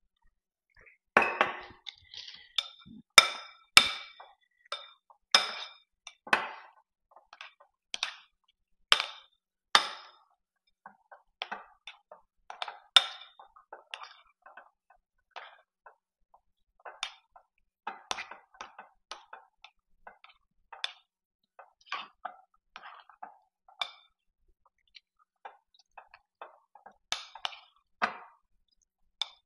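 A metal spoon clinking and scraping against a glass mixing bowl as thick peanut butter pie filling is stirred by hand. The clinks are irregular, each with a short glassy ring, and sharper and louder in the first ten seconds or so.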